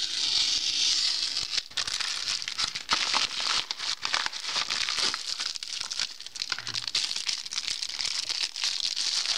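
Rustling and crinkling of a padded paper mailer being cut open with a utility knife and handled, then the clear plastic bag around a silicone phone case crinkling near the end, with many small clicks and scrapes throughout.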